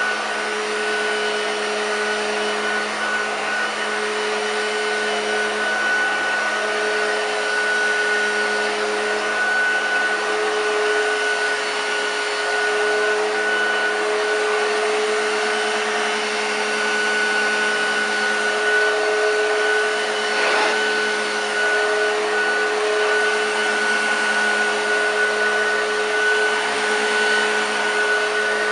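1970s Hoover Junior U1016 Dirtsearcher upright vacuum cleaner running steadily, a constant motor whine over the rush of air. The owner finds it sounds brand new, with nothing wrong with it.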